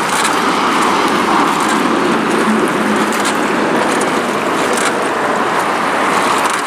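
Steady rushing of river water around an aluminium drift boat under oars, with a few faint clicks.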